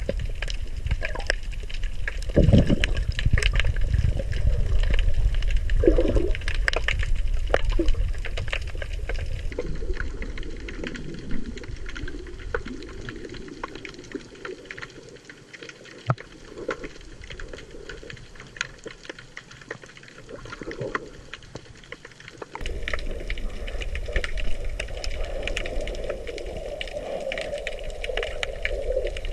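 Muffled underwater sound of water rushing and sloshing around a submerged camera, with many scattered sharp clicks and crackles. It drops to a quieter hiss in the middle, and the louder rushing returns abruptly near the end.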